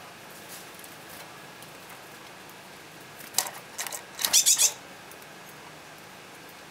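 Small birds chirping: a short flurry of rapid high chirps about three and a half seconds in, then a louder, denser flurry about a second later, over a steady faint hiss.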